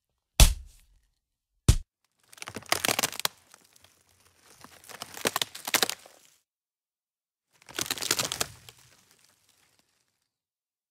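Two sharp impact hits, then three separate bursts of crunching and crinkling, like something brittle being crushed.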